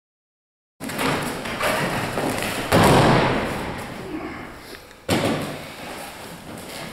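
An aikido partner's body landing on the padded dojo mat in a breakfall: a heavy thud about three seconds in that echoes for a couple of seconds, then a second sharp thud about five seconds in.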